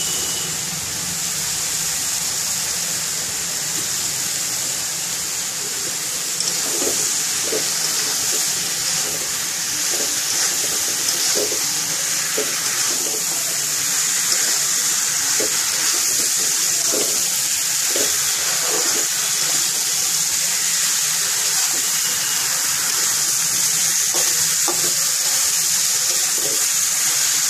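Wet pieces of green jackfruit sizzling in hot oil in a wok, a steady loud hiss, with the scrape and clink of a spatula as they are stirred.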